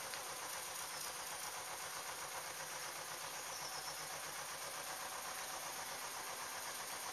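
Engine of the historic motor narrowboat Beatty running steadily, pulling a towed butty boat.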